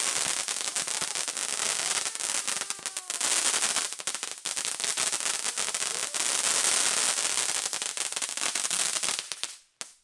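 Consumer firework shooting crackling comets skyward: a dense, continuous crackle and hiss of burning stars, peppered with sharp pops, cutting off suddenly near the end.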